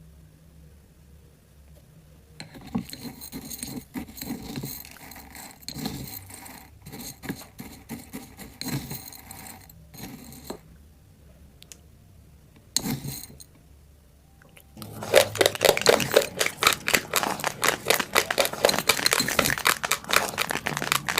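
Raw basmati rice: loose dry grains rustling and clicking in bursts for the first ten seconds, then, from about fifteen seconds in, loud rapid crunching as the uncooked grains are chewed.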